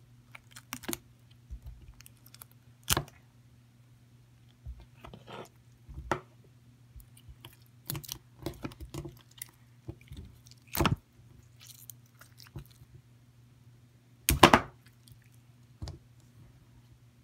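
Pink glittery slime being squeezed and stretched by hand: irregular wet, sticky pops and clicks as it is pressed and pulled, with louder pops about three, eleven and fourteen and a half seconds in.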